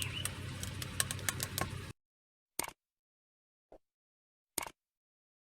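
Faint background noise with a run of irregular sharp ticks that cuts to silence about two seconds in. Three short, separate clicks follow over the next few seconds.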